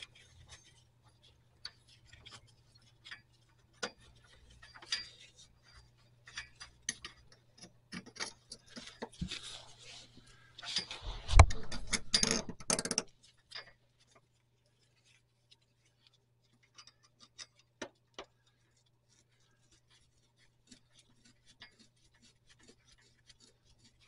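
Scattered metallic clicks, ticks and rubbing of a steel parking brake cable and its hardware being worked through brackets by hand, with a louder burst of clattering and scraping about halfway through, then only a few sparse clicks. A faint steady hum runs underneath.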